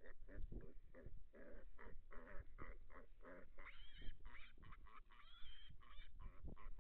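Feral hogs grunting in rapid short bursts, with two brief high squeals about four and five and a half seconds in.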